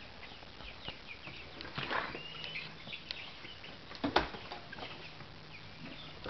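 Baby chicks peeping in scattered short, high chirps, with a few knocks, the loudest about four seconds in.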